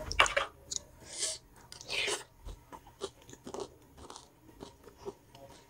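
Close-miked chewing and crunching of a mouthful of aloo nimki, spiced potatoes with crisp fried nimki. Sharp crunches come loudest about a quarter second in and again about two seconds in, followed by softer chewing clicks.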